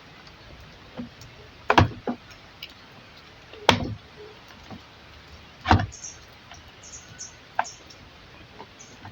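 Sharp clicks and knocks of a plastic TV casing being handled and pried at, about five loud ones a second or two apart with lighter ticks between.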